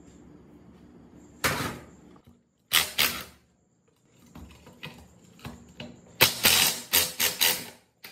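Rough scraping strokes on metal, hand work on the rusty pump's parts: a single stroke, a double stroke, a few lighter ones, then a quick run of about five loud strokes near the end.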